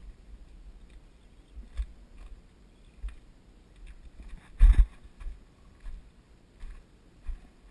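Footsteps of a hiker climbing down bare granite rock: a string of irregular dull thuds, with one much heavier thud, like a jump or hard landing, a little before the five-second mark.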